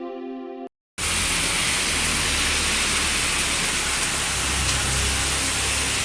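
Heavy rain: a steady, dense hiss with a low rumble underneath, starting about a second in, right after the tail of a musical intro cuts off.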